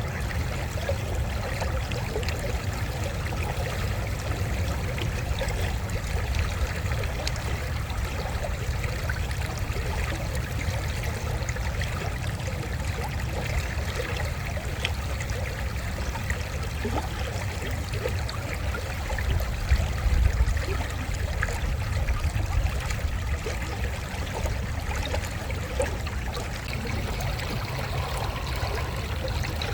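Creek water running steadily, an even rushing sound under a low rumble.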